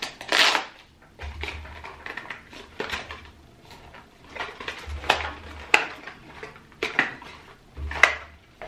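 Small paperboard box being peeled open by its pull tab and unpacked: cardboard tearing and rustling, with scattered sharp clicks and taps as the inner box is pulled out.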